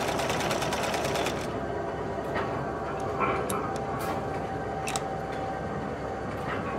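A sewing machine running fast with a dense, rapid stitching rhythm that cuts off about one and a half seconds in. After it comes a low mechanical rumble with a faint steady tone and scattered sharp clicks and ticks.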